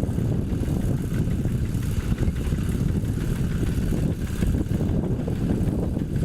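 Single-cylinder Yanmar diesel engine of a Quick G1000 hand tractor running steadily while ploughing, a low, fast, even chugging.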